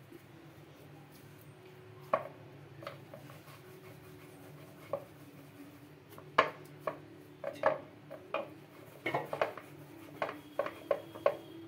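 Hands shaping puri dough balls on a wooden board: irregular soft taps and knocks as the dough is pressed, patted and set down, coming more often in the second half, over a faint steady low hum.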